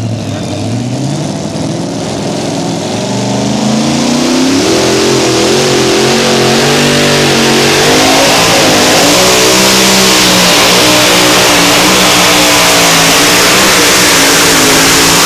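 Pulling vehicle's engine revving up, its pitch climbing over the first few seconds, then running flat out at high revs under load, growing louder through the run.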